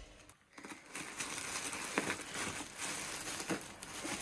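Crinkly rustling and handling noise with a few light knocks, as of a parcel being carried and handled.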